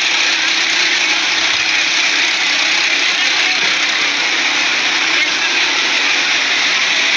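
A loud, steady motor-like whir with people's voices mixed in, heard through a phone live stream.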